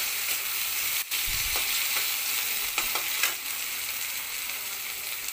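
Chopped onions, green chillies, tomatoes and ginger sizzling steadily in hot oil in a metal kadai while being lightly stir-fried. A steel spatula scrapes and knocks against the pan a few times, about a second in and again around the middle.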